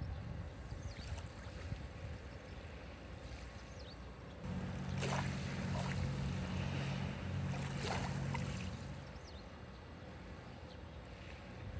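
Waves washing on the shore with a low rumble of wind on the microphone. About four seconds in, a steady low hum joins for roughly four seconds and then fades.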